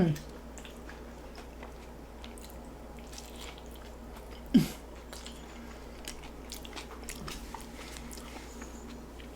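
Close-up chewing and crunching of a tostada, a crisp fried corn shell with toppings, as many small crackles and mouth clicks, with two louder short thumps at the start and about four and a half seconds in.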